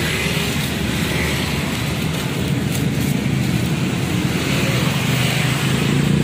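Steady street traffic, motorbikes and cars passing close by. Near the end a motorcycle engine draws nearer and grows louder.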